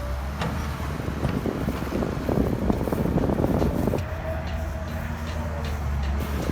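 Excavator's diesel engine running steadily, with a stretch of clattering and rushing dirt and stones from about one and a half to four seconds in, and a few sharp knocks.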